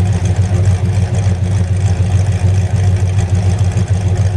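Holden Kingswood's 253 V8 running steadily with an even, low rumble, sounding much happier now that its ignition timing has been checked for pinging.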